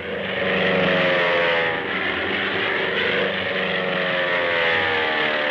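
Lockheed P-38 Lightning's twin liquid-cooled Allison V-1710 engines droning in flight, the pitch falling slowly throughout, heard on an old newsreel soundtrack with the highs cut off.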